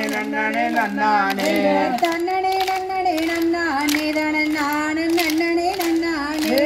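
Female voices singing a Tamil kummi folk song, holding one long note from about two seconds in, over the kummi dancers' hand claps in a steady rhythm.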